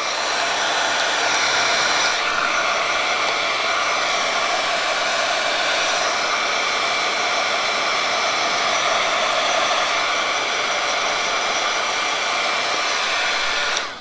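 Handheld heat gun running steadily: a rush of hot air with a steady whine, shrinking plastic shrink wrap tight around a mug.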